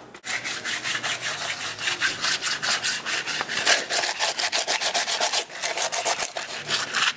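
Sandpaper rubbed by hand over a white-painted concrete wall coated with plaster-like crack filler, quick scratchy back-and-forth strokes, several a second. It is the wall being sanded smooth before the next coat of paint.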